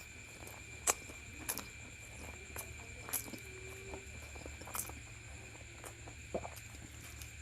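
Close-miked eating sounds of chewing luchi and egg masala: scattered sharp mouth clicks and smacks, about one or two a second. Beneath them is a steady faint high-pitched tone and a low hum.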